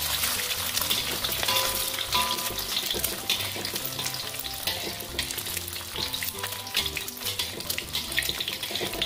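An egg frying in shallow hot oil in a wok, sizzling steadily with dense fine crackling throughout. Soft background music plays underneath.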